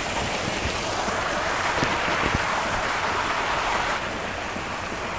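Garden fountain jets splashing: a steady rush of falling water that eases slightly about four seconds in.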